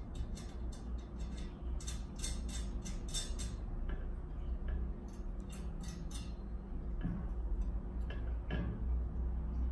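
Small metallic clicks and ticks as a bolt and nut are fitted and tightened by hand on a stainless steel chrome wire dish-drainer rack. The clicks come irregularly, in quick clusters, over a low steady hum.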